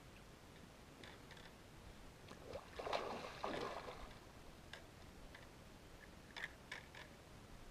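Faint water sloshing and splashing about three seconds in, followed by a few light clicks.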